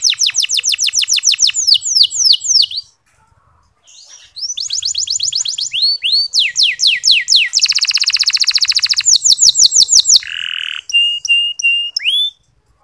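Canary singing a fast trilling 'ngeriwik' song: rapid runs of high, falling whistled notes, about seven a second. It breaks off for about a second and a half about three seconds in, resumes with more trills and a buzzy roll, and ends with a few short steady whistles and a rising note.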